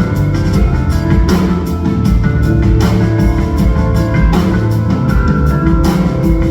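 Live band music, an instrumental stretch with no singing: a drum kit keeps a steady beat under bass and held chords.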